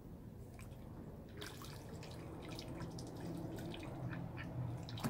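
Ducks dabbling and paddling in a shallow plastic paddling pool: small irregular splashes and drips of water, growing busier about a second and a half in, over a faint steady low hum.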